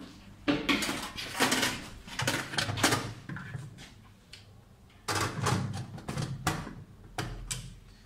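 Plastic dishwasher filter being fitted back into the sump at the bottom of the tub: clusters of clattering knocks and scrapes of plastic on plastic and stainless steel, in two spells with a quieter pause between.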